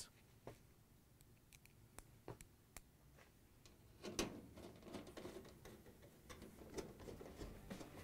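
Faint clicks and light scraping of a Torx screwdriver tip seating in and turning the screws that hold a dryer's control panel on. There are sparse single ticks at first; about halfway through, the clicking becomes denser and a little louder.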